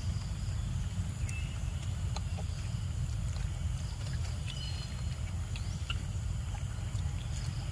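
Outdoor forest ambience: a steady low rumble with scattered short, high bird chirps and a few faint ticks.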